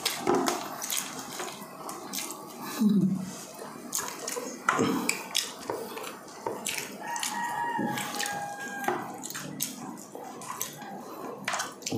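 Close-up wet eating sounds: fingers pulling and tearing cooked yellowfin tuna flesh off the bone, with chewing and many short wet smacks and clicks.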